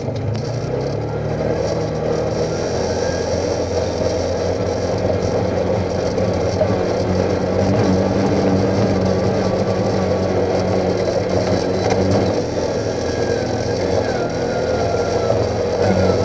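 Side-by-side UTV engine running steadily at low speed as it crawls up a rocky trail, with the rough noise of the tyres over rock and gravel.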